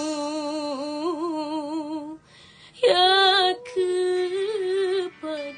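A woman singing a dangdut song, holding long notes with a wide vibrato. After a short breath about two seconds in, she comes back loudest on a higher note that swoops up, then carries on with held, wavering notes.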